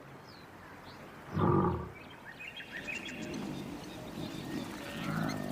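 Male lion roaring: one loud, short roar about a second and a half in, then quieter low calls, as a lion proclaims its territory.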